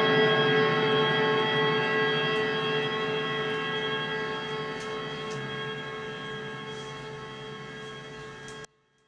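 Electric guitar through a small amplifier: a sustained chord with many overtones ringing out and slowly fading, with a few faint clicks, then cutting off abruptly near the end.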